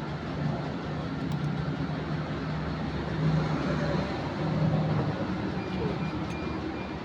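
Engine running steadily with a low, even hum that swells a little now and then.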